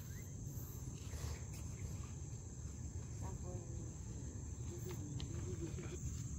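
Insects shrilling steadily in a continuous high-pitched drone, over a low rumble of wind, with a few faint clicks.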